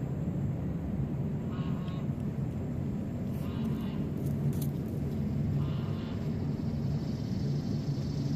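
Steady low outdoor background rumble, with a few short, faint higher-pitched sounds scattered through the middle.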